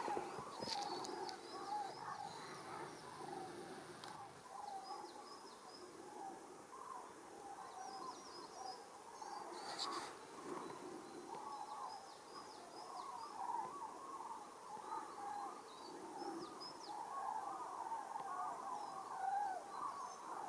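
A large flock of common cranes calling as it circles overhead: a faint, continuous chorus of many overlapping calls. Short, high chirps of small birds come through now and then.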